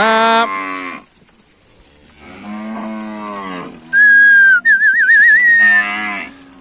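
Zebu-type cattle mooing in a herd, several long calls one after another. About four seconds in, a person whistles loudly to drive the cattle: a short falling note, then a warbling whistle, with another cow mooing beneath it.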